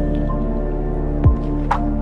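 Background music: sustained synth chords with a deep drum hit about a second in and short, drip-like plucked notes.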